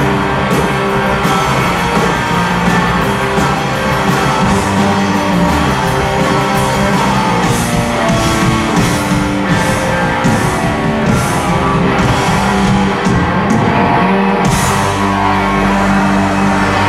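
Rock band playing live: electric guitars, bass and drums in an instrumental passage, with repeated cymbal strikes.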